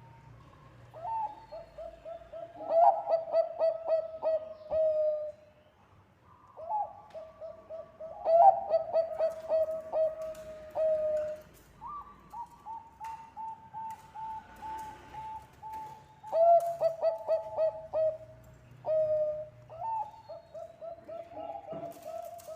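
Zebra dove (Bangkok-type perkutut) singing: about five phrases of rapid staccato coos, each phrase ending in a held, slightly falling note.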